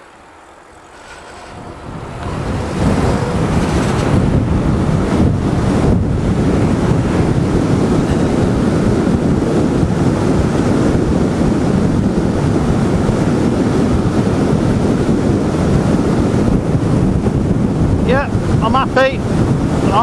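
Wind rushing over the microphone of a camera on a moving e-bike: the rush swells over the first two or three seconds as the bike picks up speed from near standstill, then holds steady at riding speed.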